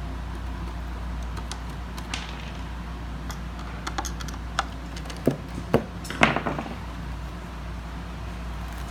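Scattered clicks and light metallic taps from a screwdriver being worked on a neon sign transformer's mounting to free it, the loudest a little after six seconds in, over a steady low hum.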